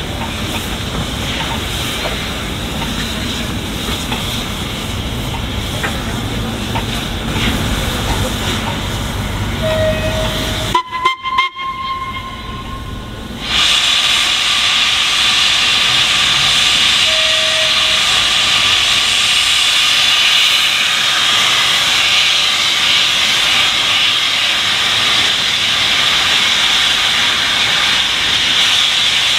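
Steam locomotive 46100 Royal Scot standing and venting steam. A lower, mixed rumble gives way suddenly, about halfway through, to a loud, steady hiss of steam escaping from the engine.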